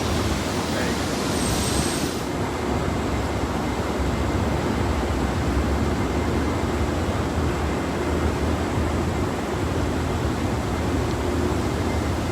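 Steady low outdoor rumble with wind on the microphone, under a faint, sustained low droning tone: the unexplained distant 'sky horn' sound, which the recorder insists is not a train.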